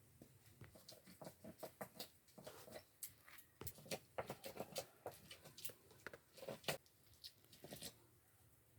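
Faint, irregular small clicks and smacks of someone eating, several a second.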